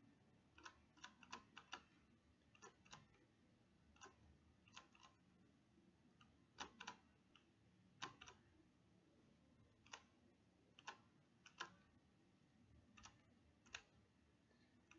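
Computer mouse buttons clicking, sparse and irregular, often in quick pairs, with near silence between them.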